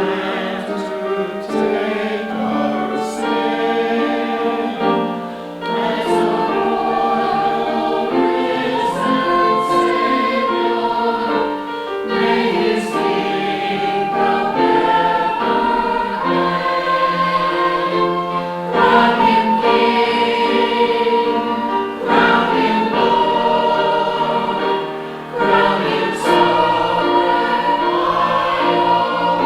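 Church choir singing a Christmas piece in sustained, many-voiced chords.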